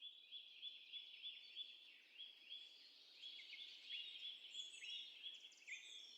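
Faint birdsong: quick, repeated short chirps, about three a second, with more birds joining in higher notes in the second half.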